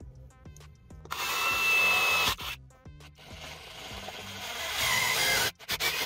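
Handheld power drill running in two bursts: a short one of about a second, then a longer one that builds up and cuts off sharply, each with a thin whine over the motor noise. Faint background music runs underneath.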